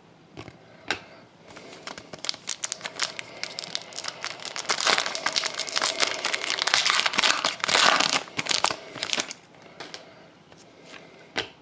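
Foil wrapper of a trading-card pack being torn open and crinkled by hand. A few light clicks come first, then the crinkling builds and is loudest in the middle before it stops.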